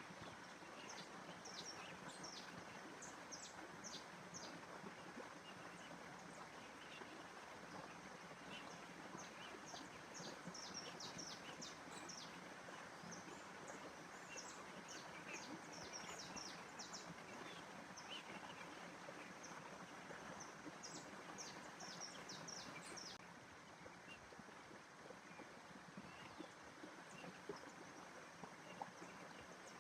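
Faint outdoor nature ambience: a steady background hiss with many small birds chirping in short, high notes, the chirps thinning out for a few seconds after about 23 seconds in.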